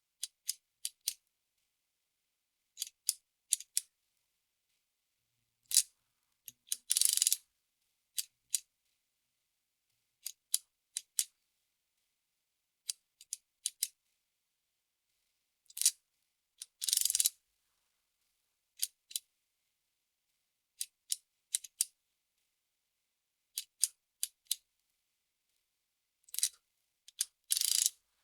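Soroban beads clicking as they are flicked up and down, in quick groups of two to four clicks with pauses between, and a longer rattle of many beads about every ten seconds.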